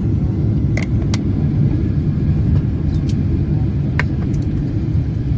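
Steady low rumble of a jet airliner's cabin as it rolls along the taxiway after landing, engines at idle, with a few faint clicks about a second in and again near four seconds.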